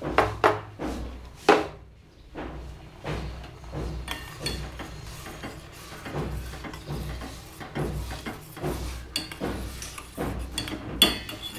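Kitchen utensils being handled on a steel gas stove: a plastic spoon knocking against a plastic container and steel pots, with two loud knocks in the first two seconds, scattered lighter clicks after, and a sharp metallic clink near the end.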